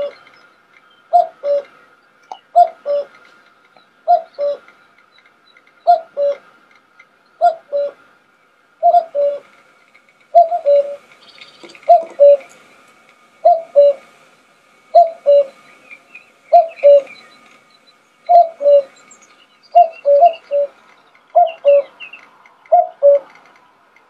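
Common cuckoo calling its two-note "cuck-oo", the second note lower, repeated about every second and a half; near 20 seconds one call stutters into three notes.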